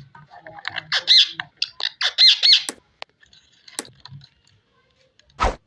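Ringneck parakeet squawking: a quick run of short, loud calls about a second in, each rising and falling in pitch. A sharp thump near the end.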